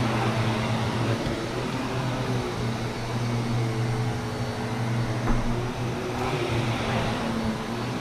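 Vacuum cleaner running steadily, a motor hum with a rush of air, its pitch shifting a little now and then. A short knock about five seconds in.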